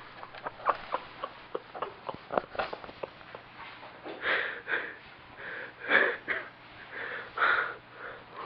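A sleeping man snoring with wheezy, breathy snores, the loudest about six seconds in, with others shortly before and after. Before them, a quick run of sharp little clicks.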